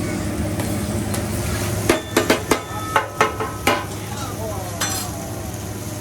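Hibachi chef's metal spatulas clacking and ringing against the griddle, a quick run of about seven strikes in under two seconds near the middle, over a steady sizzle of food frying on the flat-top.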